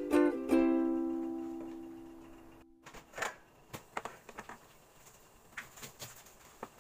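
Light ukulele background music ends on a held chord that fades out over about two seconds. After a brief cut in the sound, scattered soft knocks and taps follow as a large arrowroot is set on a plastic chopping board and a kitchen knife starts cutting into it.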